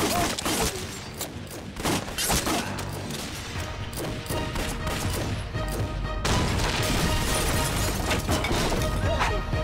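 Action-film soundtrack with a rapid run of gunshots and crashing impacts over dramatic music for about the first six seconds, then a low, sustained rumble of an explosion under the music.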